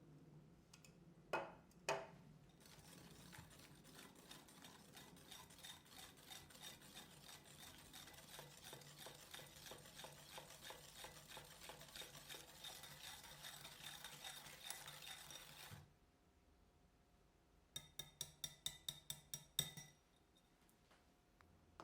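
Cake batter being stirred briskly in a mixing bowl, the utensil scraping the bowl in quick, even strokes for about thirteen seconds after two sharp knocks. After a pause comes a rapid run of about ten light taps against the bowl.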